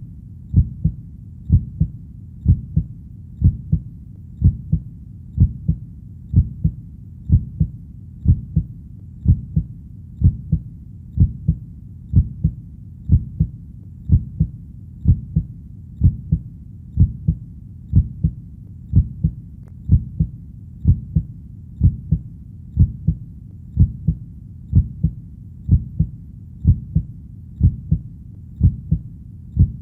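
Heartbeat beating steadily at about one beat a second, each beat a low double thump.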